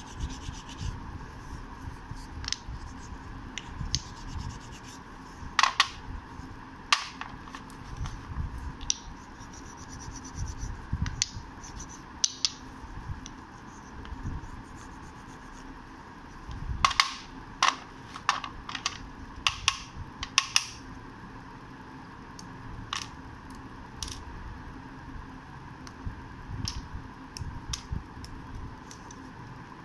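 Slate pencils and a slate triangle being handled and rubbed between fingers: scattered sharp clicks and scrapes of slate against slate and fingernails, with a cluster about six seconds in and a busier run between about seventeen and twenty-one seconds in. A faint steady hum runs underneath.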